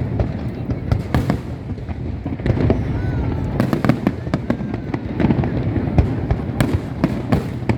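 Aerial fireworks bursting: a dense run of sharp cracks and bangs at irregular intervals, several a second at times, over a continuous low rumble.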